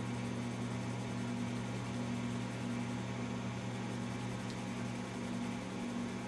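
Steady low machine hum over a faint even hiss; no rubbing strokes stand out.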